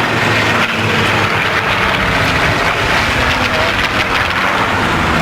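Aircraft engines running loud and steady.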